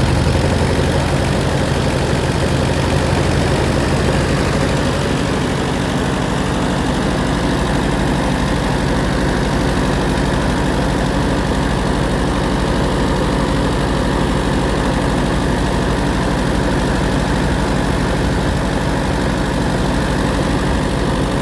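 Allis-Chalmers WD45 tractor's four-cylinder gasoline engine idling steadily, with two spark plugs newly replaced after they were sooted up from running too rich. The owner says it sounds better but could still run a little smoother, and thinks the exhaust might have a leak.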